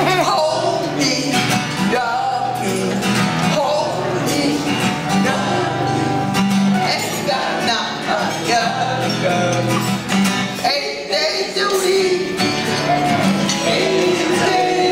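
Group singing accompanied by a strummed acoustic guitar.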